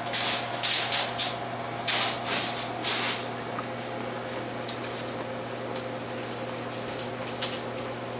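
A muzzled dog breathing hard through its nose in a string of short hissing huffs over the first three seconds. After that only a steady machine hum remains, with a few faint ticks.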